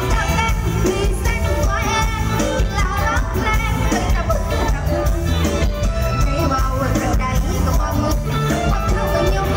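Live Isan band music with a steady heavy bass beat and a voice singing the melody.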